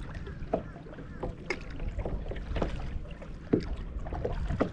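Kayak paddle strokes: a string of short, irregular splashes and drips about once a second as the blades dip into the water, over a steady low rumble.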